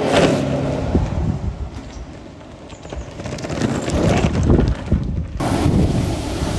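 Cruiser skateboard wheels rolling over a rough asphalt path, a rumble that swells as the board passes close, fades, then swells again about four seconds in. Near the end, wind buffets the microphone.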